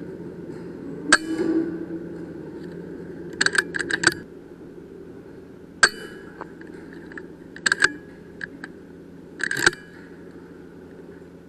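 Sharp metallic clicks and clinks from the .22 Uragan 2 air rifle: single ones about a second in and near the middle, and quick clusters of three or four in between and near the end, over a steady low hum.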